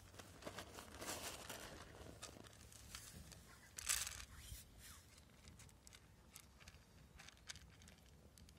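A cat chewing dry kibble, a run of small crisp crunches. About four seconds in, a handful of kibble drops onto the ceramic plate with a short clatter, the loudest sound.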